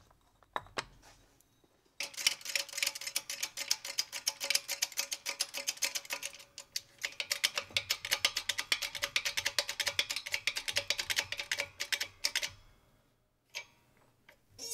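Pulley hub being pressed onto the Volvo Penta sea water pump shaft in a shop press: a fast run of clicks with a faint steady tone under it. It starts about two seconds in and stops a couple of seconds before the end.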